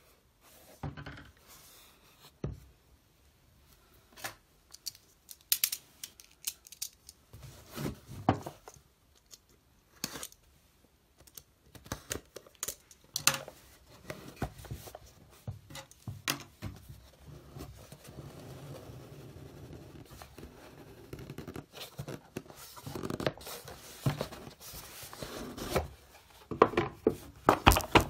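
A cardboard gift box being handled and opened by hand: irregular taps, knocks and scrapes on the card, with a stretch of steadier rubbing about two-thirds of the way through.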